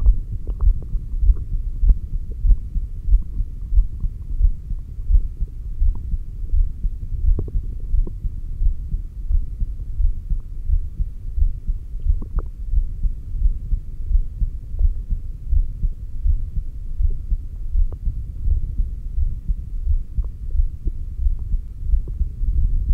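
Human heartbeat heard through a stethoscope placed on the chest at the heart's apex, beating in a steady low rhythm, with a few faint clicks.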